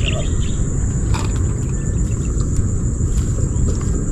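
Wind buffeting the microphone as a steady low rumble, with a thin, steady high-pitched insect trill over it and a single small click about a second in.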